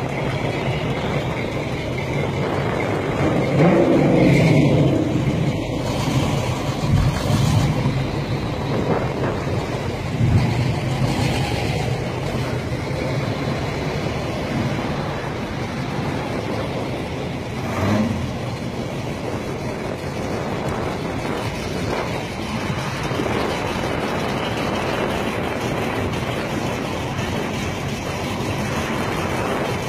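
V8 engines of classic Pontiac Trans Ams and other muscle cars running as they pull away one after another, with louder surges of acceleration about four and ten seconds in.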